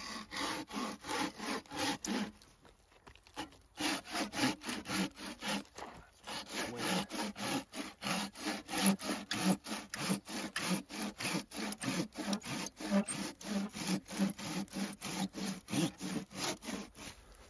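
Corona 18-inch RazorTOOTH pruning saw cutting back and forth through an old, hard, charred stump in quick, even rasping strokes. The strokes pause briefly about two and a half seconds in and again near six seconds, then run on steadily until near the end.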